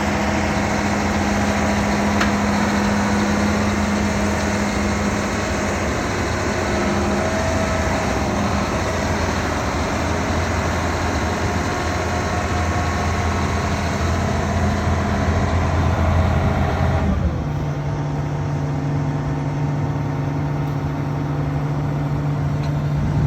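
Combine harvester running steadily under a dense machine noise. About three-quarters of the way through the sound changes abruptly to a steadier, lower hum.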